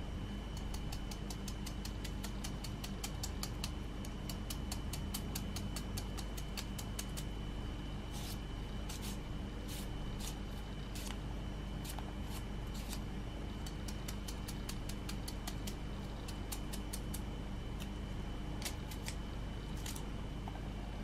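Kitchen knife chopping and shaving a cucumber held in the hand, in quick runs of crisp snicks, several a second, broken by short pauses. A steady low hum runs underneath.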